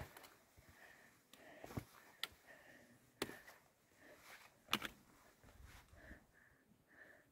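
Near silence: faint open-air ambience with a few soft, short clicks scattered through it.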